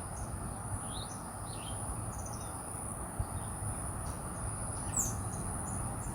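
Outdoor background of scattered short bird chirps over a steady high-pitched insect drone.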